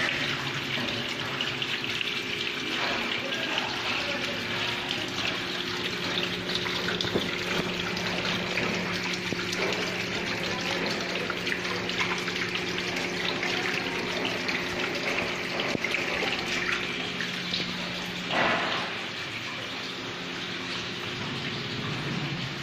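Water curtain running down a glass pane: a steady rush of falling water, with a low steady hum underneath. A brief, louder sound comes about eighteen seconds in.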